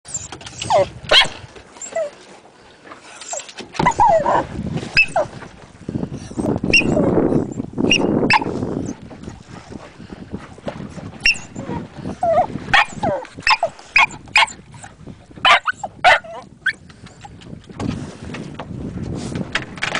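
Small terrier yipping, whining and barking in short, excited calls, over and over, at dolphins swimming beside the boat.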